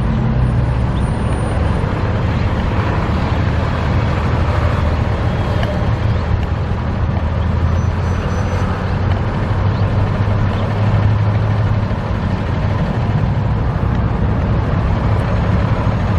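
Steady low rumble of motor vehicle engines, like road traffic or a nearby idling vehicle.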